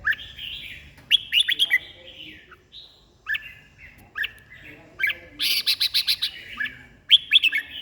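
Red-whiskered bulbul singing: short, bright chirping phrases repeated about once a second, with a quick run of rapid notes around the middle.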